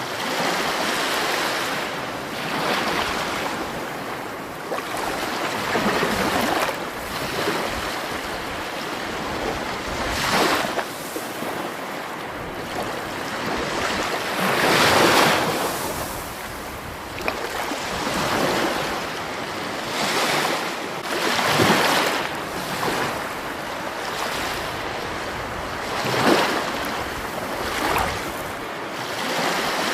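Rushing water: a continuous hiss that swells and ebbs in surges every few seconds.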